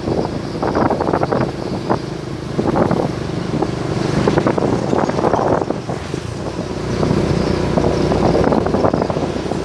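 Wind buffeting the microphone in irregular gusts over the steady low hum of a running vehicle.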